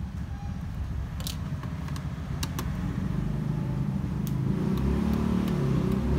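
Background music with a heavy low bass line that grows louder in the second half, with a few sharp clicks over it.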